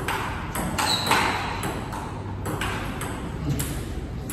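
Table tennis rally: the ball clicks sharply off the bats and the table as topspin drives are blocked with a Donic Alligator Anti 1.0 mm anti-spin rubber. There is a brief high squeak about a second in.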